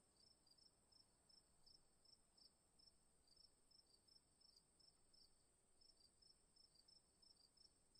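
Very faint crickets chirping at an even pace, about three chirps a second, over a steady high-pitched tone, in near silence.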